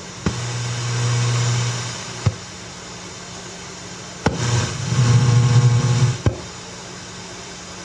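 Shortwave crystal radio reception played over speakers: a low buzzing tone that switches on for about two seconds, then off for two seconds, with a click at each switch, over steady static hiss. The uploader takes the pulsed tone for a HAARP transmission.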